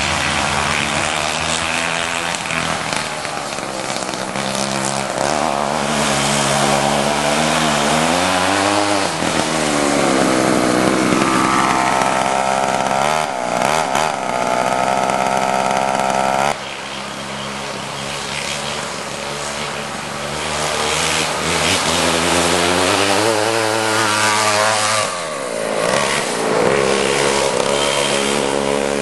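McCulloch MC-92 single-cylinder two-stroke kart engine running hard, its pitch rising and falling repeatedly as the kart is driven. Around the middle it holds a high, steady pitch for several seconds, then drops away abruptly, and near the end it dips low and revs back up.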